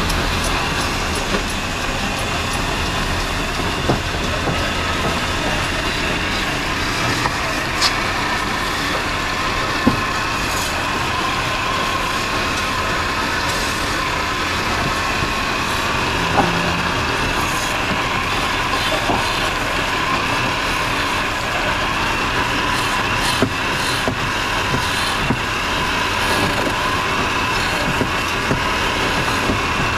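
Belt-driven electric wood lathe running steadily while a hand-held turning chisel cuts a spinning wooden charpai leg, with scattered sharp clicks.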